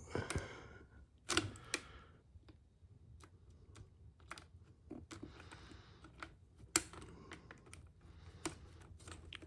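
Irregular light clicks and taps of small hand tools and plastic and metal parts being handled while an RC truck's rear axle assembly is taken apart, with a few sharper clicks among them.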